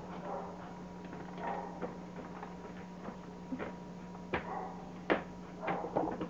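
A few sharp taps of rubber clogs on a tiled floor as a child hops, two of them clearest about four and five seconds in, over a steady low hum.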